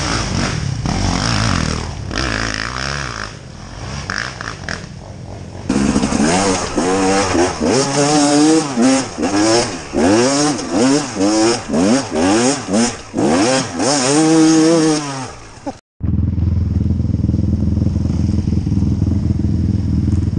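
Dirt bike engine revved in repeated short throttle blips, its pitch rising and falling about once a second, working up a wooded trail. Near the end the sound cuts out abruptly, and a steady engine hum follows.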